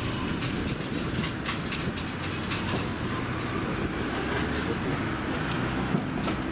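Hankai 701-series tram standing at the platform, its equipment giving a steady low hum, with scattered light clicks and taps over it.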